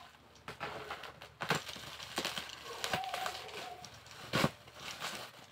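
Plastic bubble wrap and packaging rustling and crinkling as a boxed welding machine is unwrapped, with sharper crackles about a second and a half in and again near the end.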